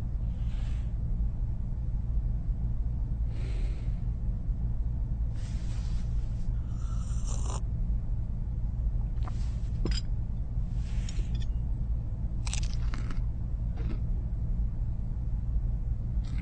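Steady low hum under a few short, breathy sounds of a person sipping from a cup; the longest comes about seven seconds in.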